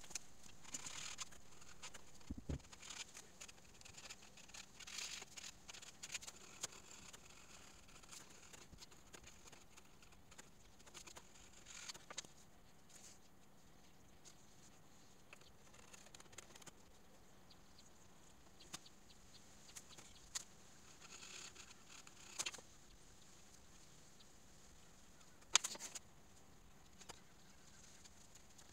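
Faint, intermittent scraping and small taps of a hand chisel paring a cut in a pine board, with one sharper knock near the end.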